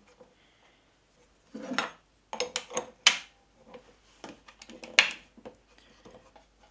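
Metal clinks, clicks and rubbing of hand work on a router: a straight bit slid into the collet and an open-end wrench fitted onto the collet nut. The sounds come as a handful of short, sharp clicks with quiet gaps between them.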